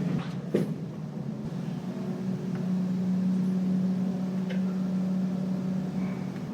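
Lift car in motion, giving a steady low hum that swells slightly in the middle, with a sharp click about half a second in.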